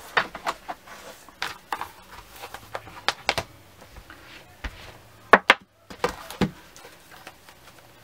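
Irregular sharp clicks and knocks of craft supplies and a plastic container being handled and set down on a work table, with the loudest knocks a little past the middle.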